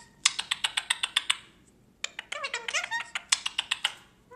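Indian ringneck parakeet making rapid smacking clicks, about ten a second, in two runs, with a stretch of high, warbling chatter between them.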